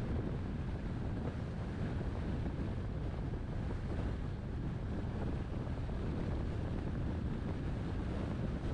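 Steady low rumble of road and wind noise from a moving car, with wind buffeting the microphone.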